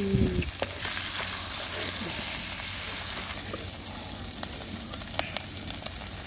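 Catfish and water spinach frying in oil in a wok, a steady sizzle that eases slightly about halfway, with a few light clicks.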